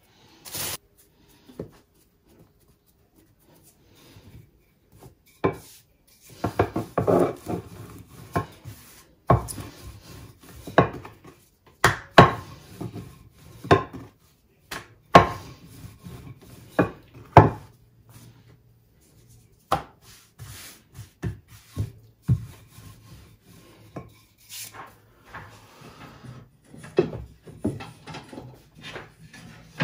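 Lahmacun dough being rolled out with a rolling pin on a wooden board: irregular wooden knocks with rubbing strokes between, busiest from about six to eighteen seconds in.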